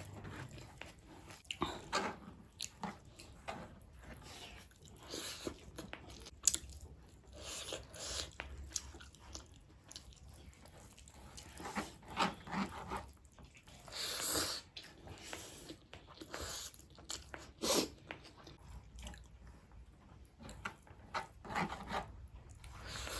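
A person chewing and biting food close to the microphone, with irregular wet mouth smacks and occasional crunches.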